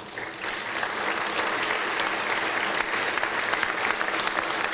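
Audience applauding: steady, dense clapping that swells up just after the start.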